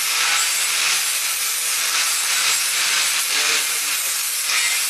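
Electric angle grinder with a sanding disc running steadily against a metal Model T wheel hub part, a dense high grinding hiss as the disc sands the metal.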